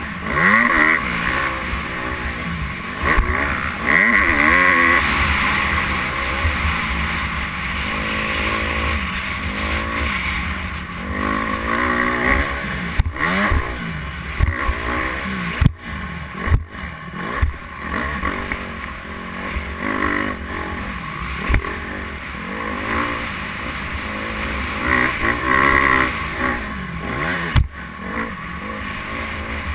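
Dirt bike engine revving hard while being ridden around a motocross track, its pitch rising and falling again and again. A few sharp thumps break in midway and near the end.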